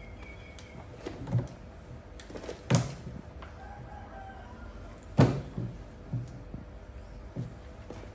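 Dull thumps and knocks a second or more apart as a baby macaque hops about on a wooden table and scrabbles at the wall. Chickens call faintly in the background.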